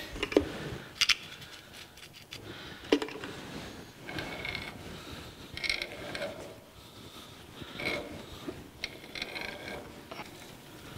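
Square-thread tap being turned by hand through a bronze nut held in a lathe chuck: a scattering of short creaks and metallic clicks as the tap cuts and the tap wrench and chuck are worked round in steps. The cut is getting tight.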